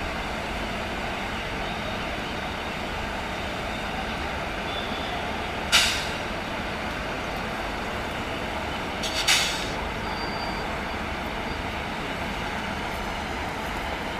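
Steady noise of a WAP4E electric locomotive and its train at a railway platform, broken by two short, sharp hisses of released air about six and nine seconds in.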